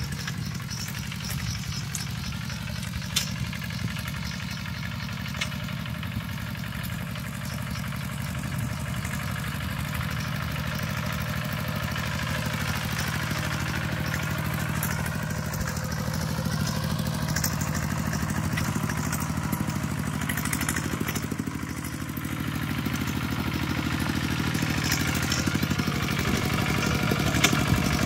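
Kubota RT120 single-cylinder diesel engine on a two-wheel walking tractor running steadily under load as it ploughs a muddy rice field, with a few clanks from the cage wheels and implement. It grows louder near the end as it comes closer.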